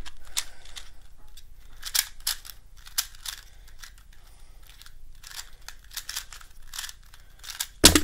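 ShengShou Mr. M 2x2 speedcube being turned quickly in a timed solve: an irregular run of short clicking turns, ending near the end with a louder slap of both hands onto the stackmat timer to stop it.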